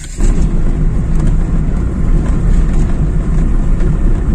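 Moving road vehicle: loud, steady low rumble of engine, road and wind noise, which starts suddenly just after the start.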